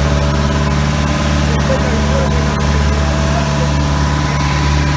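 Outrigger boat's engine running steadily at cruising speed, a constant low drone heard from on deck.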